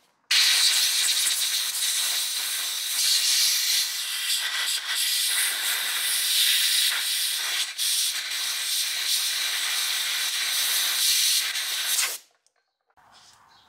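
Aerosol can of brake cleaner spraying in one long steady hiss for about twelve seconds, faltering briefly about two-thirds of the way through, as it flushes out the splines of a drive axle shaft.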